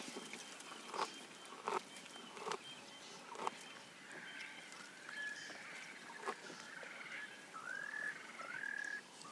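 Birds calling: a string of short whistled notes that rise and then level off, repeating from about halfway through. Before them come a few separate sharp clicks.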